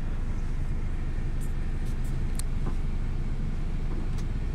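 Car engine idling, heard from inside the cabin: a steady low rumble that drops away right at the very end.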